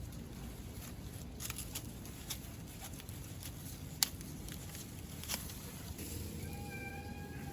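Scattered small clicks and taps over a low steady background rumble. About six seconds in, a long drawn-out animal call starts, falling slightly in pitch, like a cat's meow.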